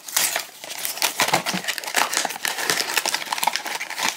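Small cardboard blind box handled and opened by hand, its flaps bent and pulled open, giving a dense run of crinkling, scraping and clicking.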